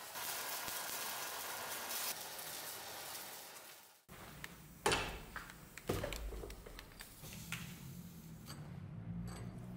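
Welding arc hissing steadily as cracks in an old axe head are welded, fading out about four seconds in. Then a few sharp metal knocks and clinks, the loudest about a second apart, as the welded axe head is handled with tongs at a bench vise.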